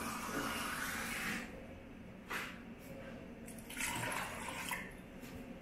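Water pouring and splashing into an aluminium pressure cooker over potato pieces and a fish head, in two spells: a longer pour at the start and a shorter one about four seconds in, as a jug of water is emptied into the pot. A single light knock between them.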